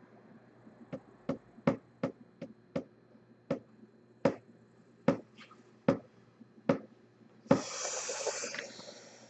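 A series of about a dozen light, sharp clicks, spaced roughly half a second to a second apart, then a rushing hiss of noise lasting about a second and a half near the end.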